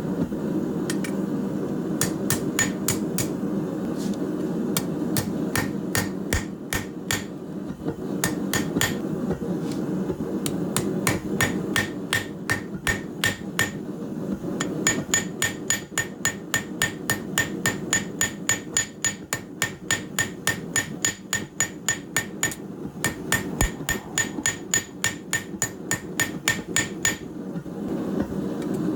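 Hand hammer striking steel on an anvil while forging a corkscrew, blow after blow at about three a second in runs with short pauses, each blow followed by a high ring from the anvil. A steady low hum runs underneath.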